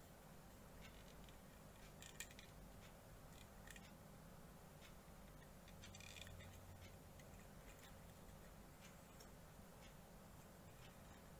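Near silence with faint clicks of hard plastic model-kit parts being handled and pressed together, the sharpest about two seconds in.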